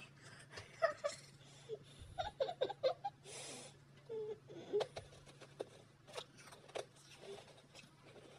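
Soft, stifled giggling and breathy laughter, with a breathy exhale about three seconds in and faint scattered clicks throughout.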